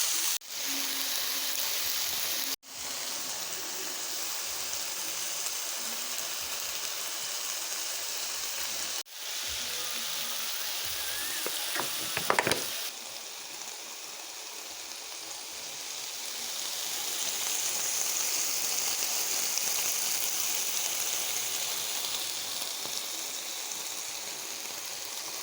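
Chicken stir-frying in a hot pan, a steady sizzle, with a few sharp clicks about twelve seconds in.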